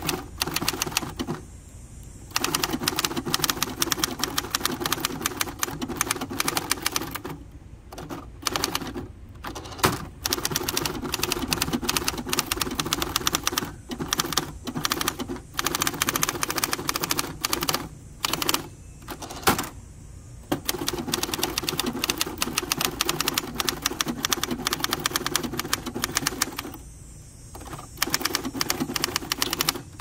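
A 1964 Hermes Ambassador manual office typewriter being typed on: fast runs of key and typebar strikes clacking against the platen, broken by several short pauses.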